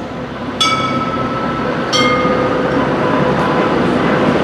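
Low-floor tram pulling into a stop, its running gear rumbling with a steady whine. Two ringing bell dings come about a second and a half apart, the first under a second in.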